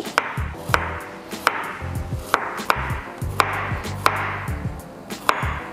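Chef's knife slicing garlic cloves on a wooden cutting board: sharp knocks of the blade on the board, a little under two a second and unevenly spaced.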